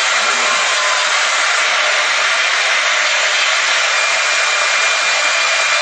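CNC router spindle running at high speed while its small bit carves wood: a steady, even whirring hiss, with a faint high whine coming in about halfway.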